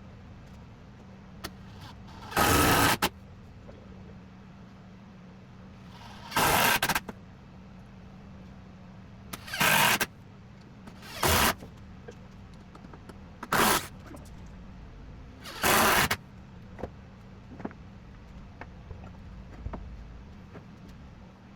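Power driver sinking 2.5-inch wood screws through a wooden frame into a platform, in six short bursts a few seconds apart, over a steady low hum.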